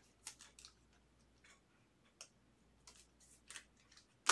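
A trading card being slipped into a clear plastic sleeve: faint rustling and light clicks of thin plastic and card, with one sharp click near the end.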